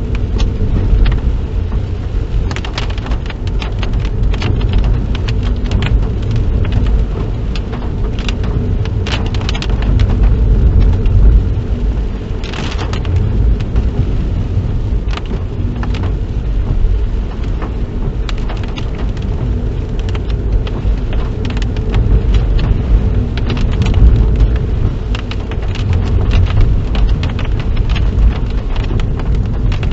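Inside a moving car in rain: a steady low rumble of engine and tyres, with many short irregular clicks of rain hitting the car.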